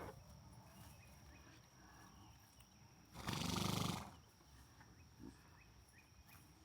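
Horse snorting once, a short fluttering blow through the nostrils lasting under a second.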